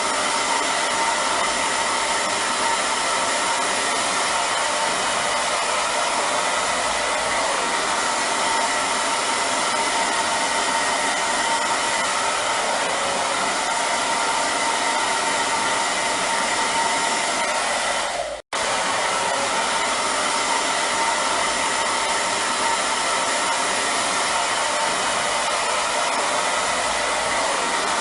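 Hair dryer running steadily: an even rush of blown air with a faint whine. It cuts out for a split second about two-thirds of the way through, then carries on unchanged.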